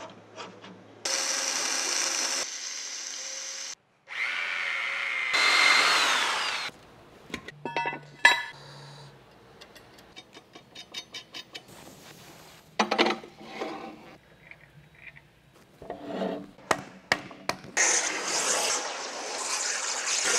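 A quick run of workshop sounds: a power tool running in two short spells, then a wrench clicking and metal parts clinking as bolts are fitted. Near the end comes a waterjet cutter's steady spraying hiss as its jet cuts steel plate under water.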